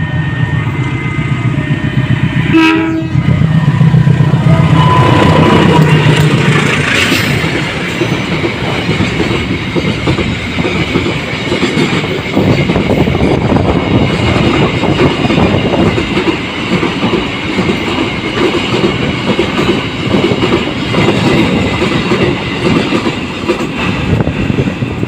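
CC 201 diesel-electric locomotive passing with its single-note horn. The loudest part comes a few seconds in, and then the passenger carriages clatter steadily over the rail joints.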